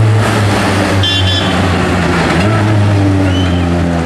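Ford Focus RS WRC rally car's turbocharged four-cylinder engine running at low road speed as the car drives past, together with a police motorcycle passing just ahead of it. A short high-pitched tone sounds about a second in.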